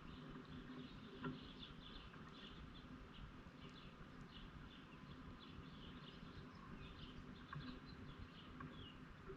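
Birds chirping faintly, many short high chirps several times a second, with a single faint click a little over a second in.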